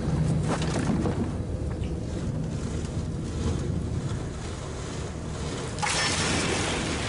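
Wooden well bucket on a rope being lowered down a stone well shaft over a steady low rumble. About six seconds in, it splashes into the water, a sudden hissing splash that keeps going.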